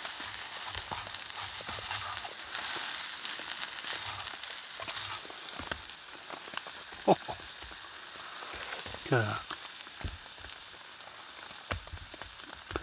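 Steak sizzling in a hot frying pan as it is cut, a soft steady hiss that fades over the first half, with a few sharp clicks of the knife against the pan, the loudest about seven seconds in.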